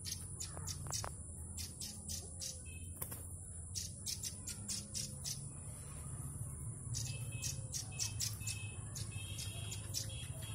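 Yellow-bellied warbler (cikrak bambu) in its cage calling freely, a quick irregular string of very high, short chips with a few thin whistled notes near the end, over a steady high hiss and a low background rumble.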